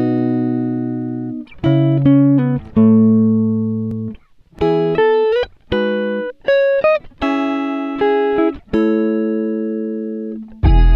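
Background music: plucked-string chords and short runs of quicker notes, each struck sharply and ringing out as it fades, with the chord changing about every second.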